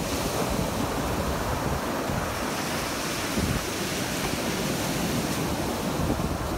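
Sea surf breaking and washing up a sandy beach in a steady rush, with wind rumbling on the microphone.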